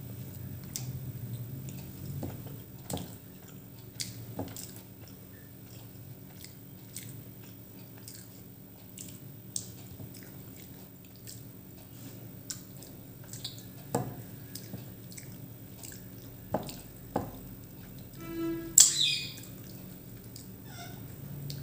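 A person chewing a home-cooked meal, with scattered light clicks and taps every second or two, and a short, louder noisy sound near the end.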